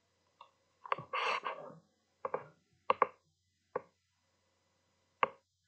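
A handful of short, sharp clicks and knocks, spaced irregularly, with a brief noisy rustle about a second in.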